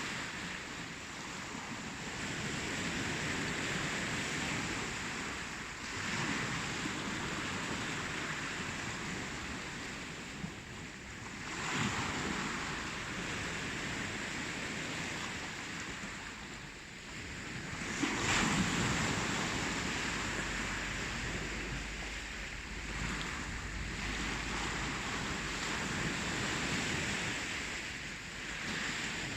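Ocean surf: a continuous wash of waves rolling in and drawing back, rising and falling, with louder breakers about twelve and eighteen seconds in.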